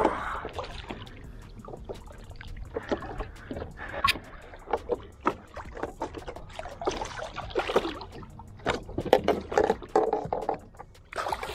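A large black drum splashing and thrashing at the surface beside a paddleboard, with water sloshing against the hull. Scattered clicks and knocks run through it, with the loudest splashing near the end.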